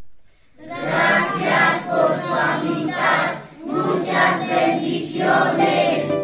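A group of boys singing together. It starts about half a second in, with a short break in the middle.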